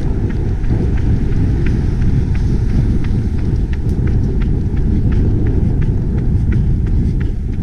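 Wind buffeting the microphone of a camera worn by a running person: a loud, steady low rumble, with the runner's footsteps faintly heard about three times a second.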